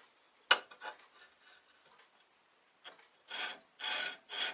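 A sharp knock, then three short rasping scrapes near the end: a steel turning tool being rubbed against the stationary grinding wheel while the sharpening jig is set up, with the grinder switched off.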